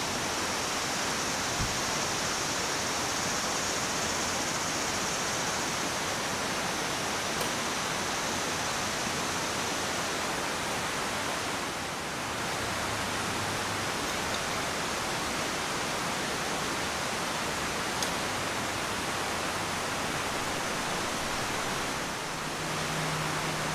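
A river rushing steadily, with a faint knock or two.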